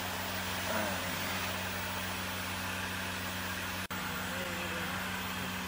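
Steady low droning hum of a machine running, over an even hiss, which cuts out for an instant about four seconds in.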